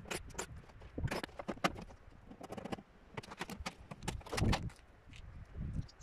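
Irregular metallic clinks, knocks and scrapes of hand tools and sheet-metal parts as a scrap washing machine is taken apart.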